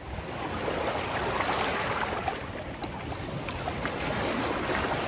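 Small sea waves washing and draining among the boulders of a rocky shore: a steady hiss that swells and eases, with a few faint clicks.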